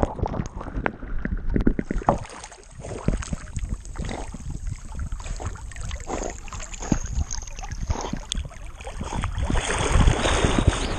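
A dog splashing into a pond and then swimming, water sloshing and splashing close against a chest-mounted camera as it paddles. The splash at the start is the loudest, and the sloshing grows louder again near the end.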